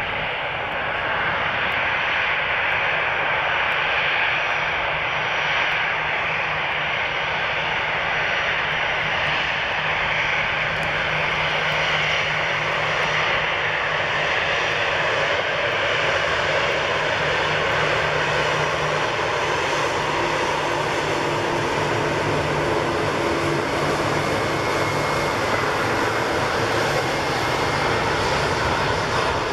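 Airbus A340-300 taxiing past at low thrust, its four CFM56 jet engines making a steady rushing noise with a faint low hum underneath.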